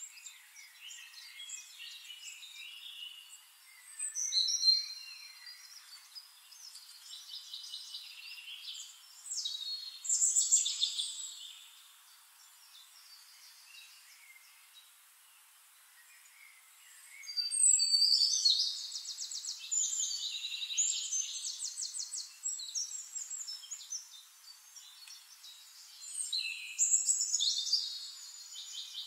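Birds singing in bursts of high chirping phrases and fast trills, with a quieter lull around the middle.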